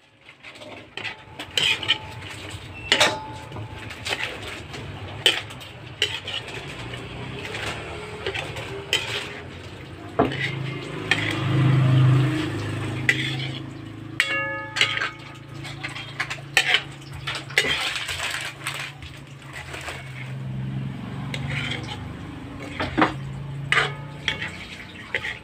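Metal cooking utensils repeatedly knocking and scraping against a pan while pancit canton noodles are stir-fried, over a steady low hum. One short ringing clang comes about halfway through.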